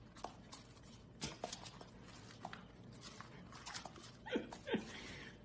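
Golden retriever puppy's claws tapping faintly on a hard floor, then two short whines that fall in pitch, close together near the end.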